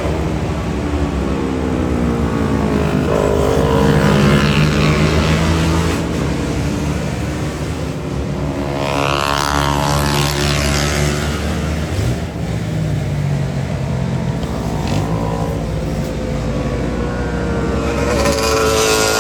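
Motorcycle engines running and passing by, their pitch gliding up and down as they rev and go past. One comes close about nine to eleven seconds in, its pitch rising and then falling away.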